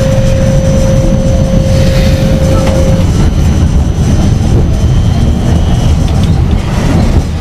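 A Vienna tram running along the street, heard from inside the passenger car: a steady low rumble. A steady high tone runs over it and stops about three seconds in.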